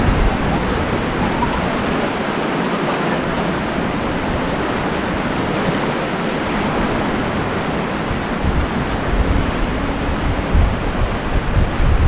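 Whitewater river rapids rushing around an inflatable raft, a steady dense noise, with wind buffeting the microphone in low gusts from about eight seconds in.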